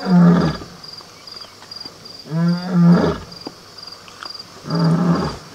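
Lion roaring: three deep, loud calls about two seconds apart, the middle one longer and in two parts. Crickets chirp steadily and faintly behind.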